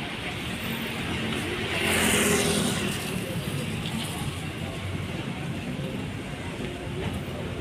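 Street traffic noise on a wet road, with one vehicle passing about two seconds in, its tyres hissing on the wet surface as it rises and fades.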